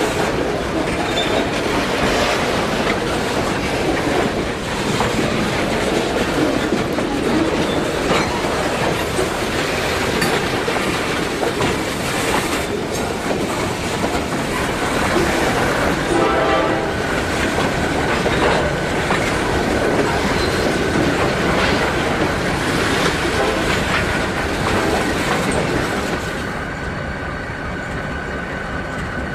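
A train running on rails: a steady rumble and clatter of wheels. About halfway through a brief pitched, horn-like tone sounds, then a steady high tone holds until the sound eases off near the end.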